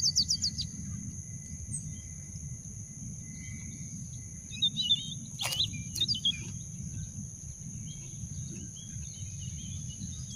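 Outdoor ambience of birds and insects: a steady high insect drone over a low rumble, with a quick run of falling bird chirps at the start and more chirping around the middle. Two sharp clicks come about five and a half and six seconds in.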